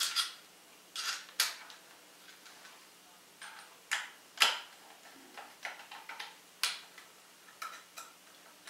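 Screwdriver driving metal screws by hand into a rifle stock's cover plate: a dozen or so irregular sharp clicks and short scrapes, the loudest about halfway through.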